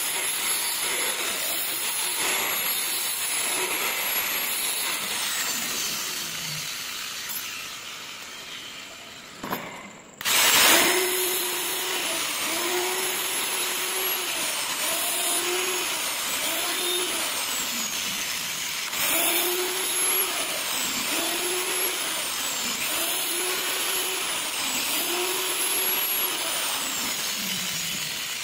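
Angle grinder with a grinding wheel, grinding a small hand-held metal part; its motor whine sags in pitch each time the part is pressed to the wheel and climbs back as it is eased off, every second or so. About ten seconds in the sound fades and briefly stops, then the grinder starts up again with a sudden loud burst.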